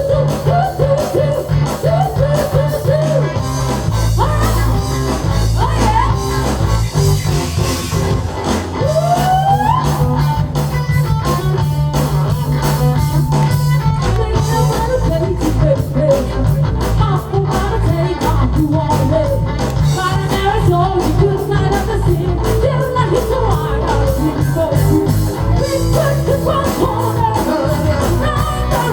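Live rock band performing a song with a singer: bass, drums with a steady beat, and electric guitar under the vocal line, recorded straight from the room sound.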